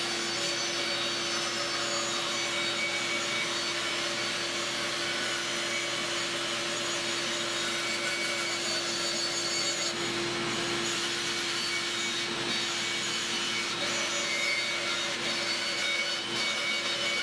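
Woodworking bandsaw running with a steady hum, its blade cutting along a pencilled curve through a long elm board.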